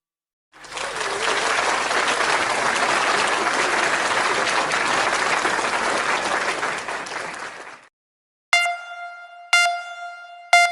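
A crowd applauding for about seven seconds, then fading out. After a short gap come three identical bright ding tones, about a second apart, each struck sharply and ringing away.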